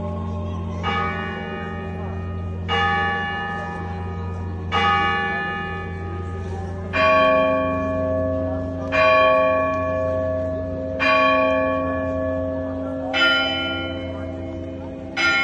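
Russian Orthodox church bells rung one at a time in a perezvon: single strokes about every two seconds, the same bell sounded about three times before a differently pitched bell takes over. Each stroke rings out and decays over a lingering low hum from the larger bells.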